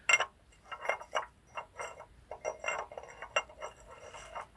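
Metal tractor gearbox parts (gears, shaft, coupling) clinking and tapping against each other as they are handled: about a dozen light, irregular strikes, each with a brief metallic ring.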